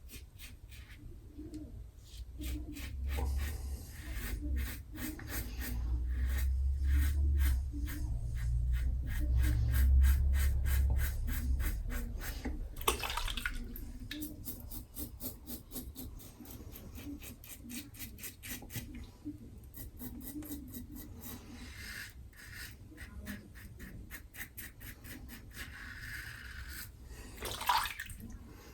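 Safety razor scraping through lathered stubble in quick runs of short, crisp strokes. A low rumble swells underneath between about three and twelve seconds in.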